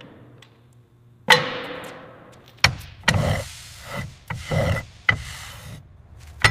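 A series of sharp metallic knocks and clanks, about six in all; the first, about a second in, is the loudest and rings on afterwards, and several of the later ones trail off in a short rasp.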